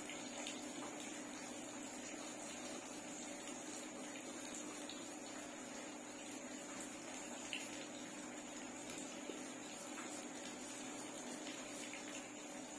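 Steady background hiss with a faint electrical hum, and light scratching of a graphite pencil on paper.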